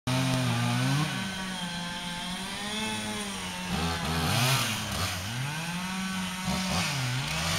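Chainsaw running, its pitch repeatedly rising and falling as the throttle is worked, a little louder about four seconds in.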